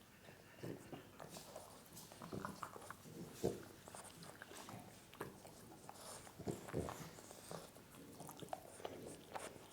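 Dogs playing together: scattered mouthing, biting and scuffling noises with a few soft thumps, the loudest about three and a half seconds in and again around six and a half to seven seconds in.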